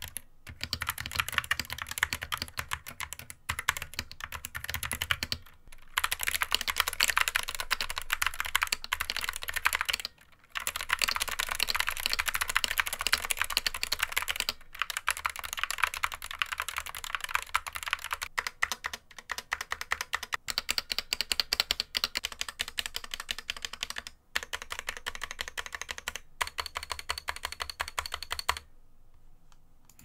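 Typing on a GamaKay MK61 keyboard with stock, unlubricated Gateron optical yellow linear switches: fast, continuous key clacks with a few brief pauses, stopping shortly before the end.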